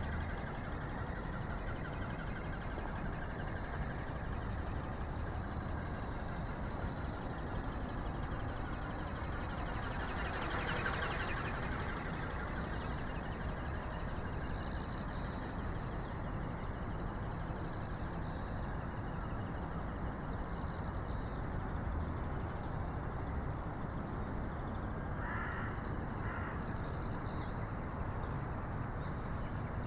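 Flapping-wing model ornithopter's small brushless motor and gear drive whining, high-pitched and fast-pulsing, over a low rumble. It swells about ten seconds in. A few short bird chirps come in the second half.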